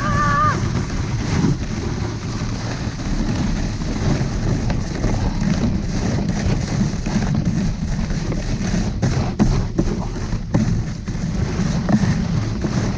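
Wind buffeting the microphone and ski-type sled runners scraping and rattling over packed snow on a fast downhill run, with a brief high-pitched cry at the very start and a cluster of sharp knocks from bumps near the end.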